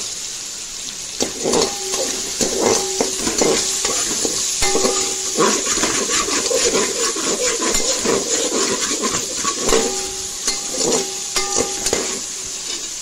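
Ginger-garlic paste and green chillies frying in hot oil with a steady sizzle, stirred by a perforated metal spatula. From about a second in, its repeated metal-on-metal scrapes against the pot ring with a short clear tone.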